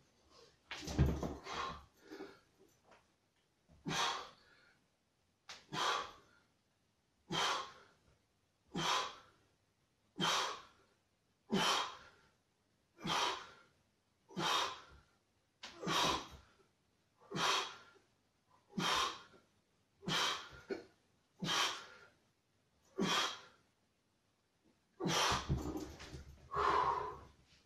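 A man's forceful breaths, one every second and a half or so, in time with the repetitions of a set of dips on a home exercise station: the effort breathing of each push-up off the bars. Near the end come two longer, heavier breaths.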